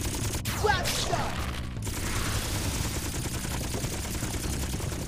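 Cartoon sound effect of rapid-fire energy cannons: a continuous fast volley of laser blasts, with a few falling zaps in the first second.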